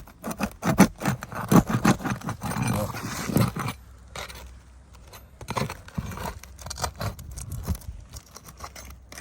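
Metal pry tool scraping and clicking against asphalt roof shingles as a brittle shingle is pried up to get at its nails. The sharp clicks and scrapes are dense for the first few seconds, then thin out to a few fainter clicks.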